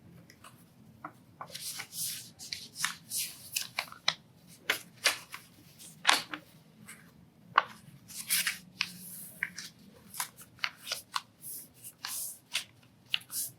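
A square sheet of paper being folded by hand for an origami crane, pressed along its creases as the outer corners are brought in: irregular crinkling and rustling with many short, sharp crackles.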